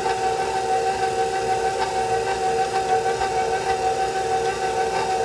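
Stand mixer motor running steadily with a high whine, its dough hook turning through flour and liquid at the start of kneading.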